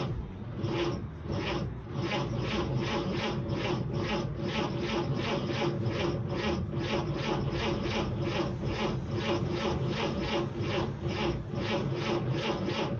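A 1946 Chevrolet Fleetmaster's six-cylinder engine cranked over by its starter without firing, in an even rhythm of about four to five compression strokes a second, stopping near the end. The engine is being turned over to see whether the mechanical fuel pump delivers fuel; none comes, and the owner suspects the pump isn't working.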